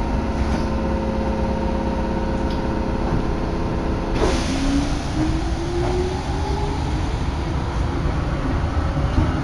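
Electric commuter train pulling out of a station, heard from inside the car: a steady hum while standing, a brief hiss about four seconds in, then a whine rising in pitch as the train starts moving and gathers speed, over a constant low rumble.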